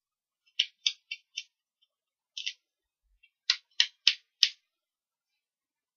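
Short crisp paper scratches and rustles, about nine in two clusters, from fingernails picking at the backing papers on foam adhesive dots (Stampin' Up! Dimensionals) stuck to a card panel.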